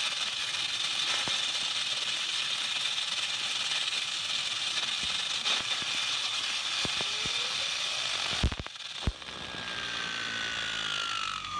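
High-pressure waterjet hissing steadily as it blasts a skateboard wheel spinning at high speed, the spray rattling around the tank. About eight and a half seconds in come two heavy knocks, followed by a whine that slowly falls in pitch as the wheel spins down.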